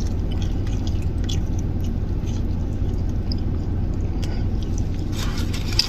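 Close-up chewing of a fried chicken nugget: small wet clicks and crunches over a steady low hum.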